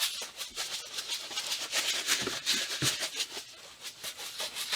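Granular rattle and hiss of Tannerite powder shifting inside a lidded plastic jug as it is shaken and handled, irregular and softer than a hard shake, easing off about three and a half seconds in.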